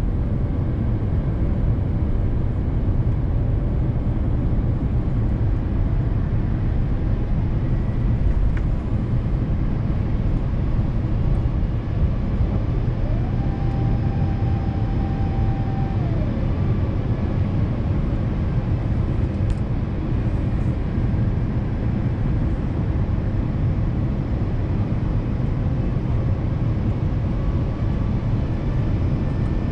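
Steady cabin rumble inside an Airbus A350-900 on descent: engine and airflow noise heard from a window seat. About halfway through, a higher whine glides in, holds for about three seconds and glides away.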